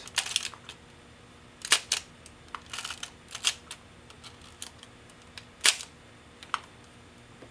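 Ihagee Exakta VX IIb 35mm SLR being fired and wound on to advance past the leader after loading film. Its shutter and film advance make a series of sharp mechanical clicks, the two loudest about two seconds in and near six seconds.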